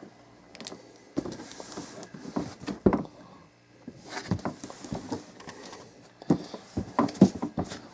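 Irregular light knocks and scuffs of handling, with a few sharper taps around three seconds in and again near the end.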